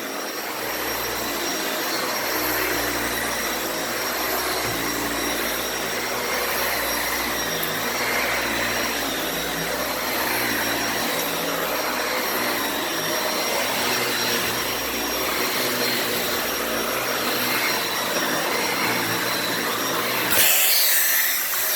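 Dyson Ball Animal 2 upright vacuum running steadily over thick carpet, with a thin high whine over its hum. Near the end the low rumble drops out and a brief louder hiss comes in.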